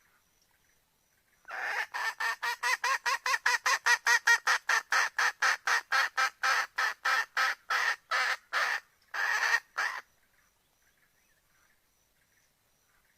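Red junglefowl hen calling: a rapid run of cackling notes, about three or four a second for some eight seconds, that slows and ends with two longer notes.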